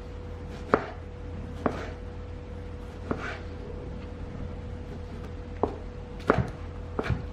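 Knife cutting a tomato on a cutting board: about six separate knocks of the blade meeting the board, irregularly spaced.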